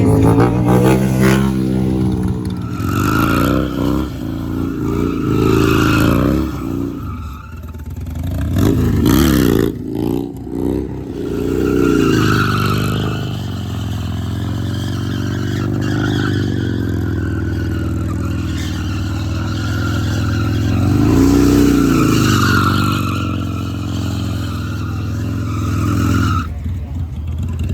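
Motorcycle V-twin engine through Cobra Neighbor Hater slip-on mufflers while riding, the revs climbing and dropping several times as it accelerates and shifts, easing off near the end.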